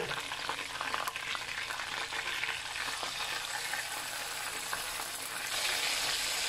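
Chicken pieces frying in hot oil in a pan, a steady crackling sizzle. About five and a half seconds in, the sizzle grows louder and brighter as a raw piece of chicken is lowered into the oil.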